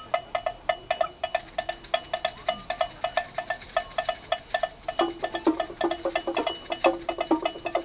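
Background music: a quick, even beat of woodblock- or cowbell-like knocks, about five a second, with a lower held note joining about five seconds in.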